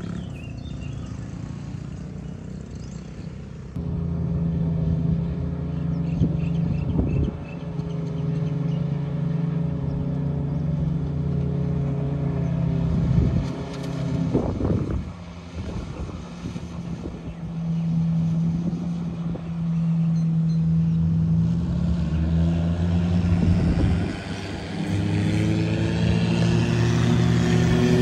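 A vehicle engine running steadily, its pitch rising over the last few seconds as it speeds up.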